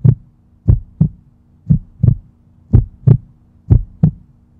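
Heartbeat sound effect: paired low thumps (lub-dub), repeating about once a second.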